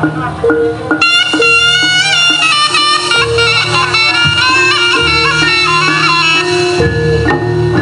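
Live East Javanese jaranan gamelan music: a reedy, ornamented melody on the slompret (terompet, a double-reed shawm) over kendang drums and repeating gong-chime notes. The shawm comes in about a second in and drops out near the end, leaving the drums and chimes.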